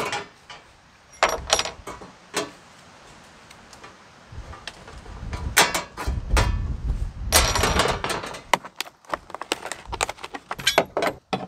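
Pliers bending and breaking knockout tabs out of a steel electrical panel cover: sharp metallic clicks and snaps, a few at a time. From about seven seconds in, a plastic bag crinkles and small metal parts clatter as they are handled.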